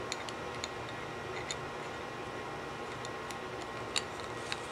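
Light metallic ticks and clicks as a nut, a threaded rod and a flat steel bar are handled and fitted together, about seven irregular ticks, the loudest about four seconds in, over a steady background hiss.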